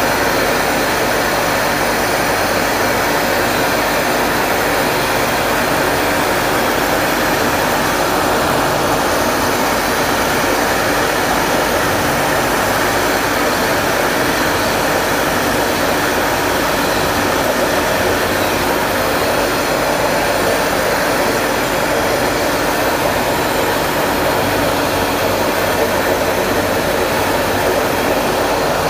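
Francis turbine test rig running under load from its brake drum: a loud, steady noise of water rushing through the turbine together with its machinery, with no distinct tones or knocks.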